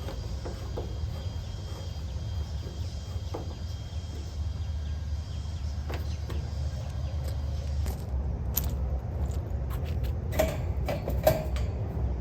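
Steady low rumble with scattered clicks and clinks, and a quick run of sharper clinks near the end.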